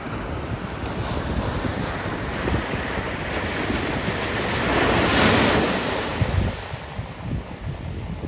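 Ocean surf breaking on a sandy beach: the rush of a wave builds to a loud crash about five seconds in, then washes up the sand and fades. Wind buffets the microphone throughout.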